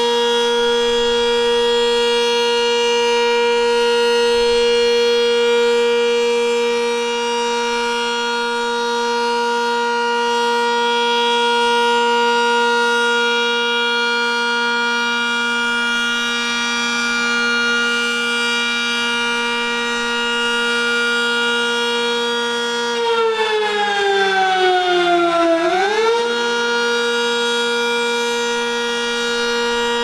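Sentry 10V electromechanical outdoor warning siren sounding a steady alert tone, its level swelling and fading gently. About three-quarters of the way through, the pitch sags downward for a couple of seconds, then swings quickly back up to the steady tone.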